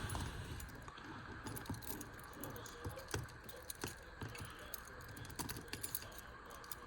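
A bunch of metal keys on a keyring jangling, with light, irregular clicks as they are handled.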